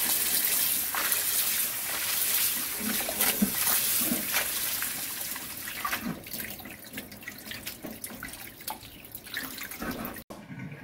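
Kitchen tap running into a bowl of water in a stainless steel sink while leafy greens are swished by hand. About six seconds in the running water dies down, leaving drips and small splashes as wet greens are lifted into a stainless steel colander.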